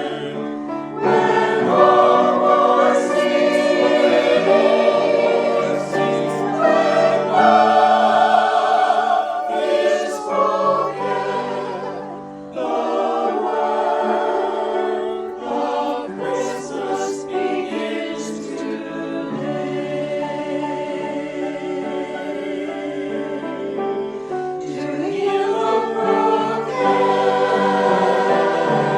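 Choir singing a hymn with instrumental accompaniment, voices holding sustained notes with vibrato in phrases that break off and resume.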